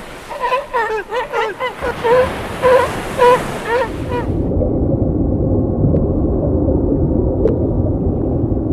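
Cats mewing in many short, quick calls that stop suddenly about four seconds in. A steady low rumbling noise, like wind on the microphone, comes in about two seconds in and carries on alone after the mewing ends.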